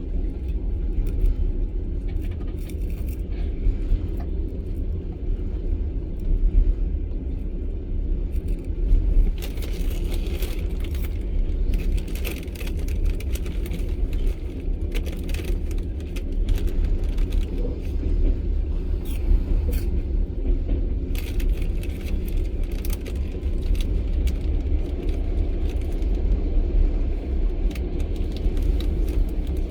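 Long-distance passenger train running at speed, heard inside the carriage: a steady low rumble of wheels on the rails, with scattered sharp clicks and rattles that grow busier in the middle.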